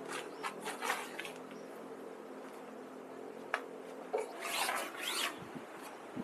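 A series of short scratchy rubbing sounds, with a longer rasp about four and a half seconds in.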